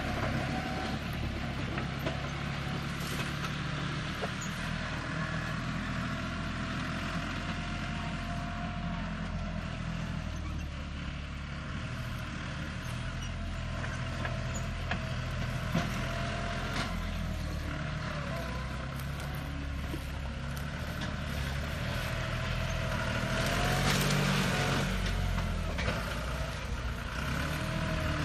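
John Deere farm tractor's diesel engine running steadily under load as its front blade pushes into earth and a tree stump; it grows louder near the end as the tractor drives into the stump.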